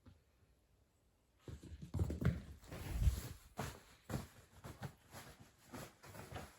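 Kitten scampering and pouncing on bedding: a run of irregular soft thumps and rustles that starts about a second and a half in.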